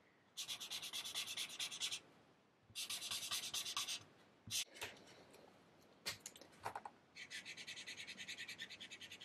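Alcohol marker's felt nib scrubbing rapidly back and forth on paper in three runs of quick strokes, with a couple of short clicks in the pauses between them.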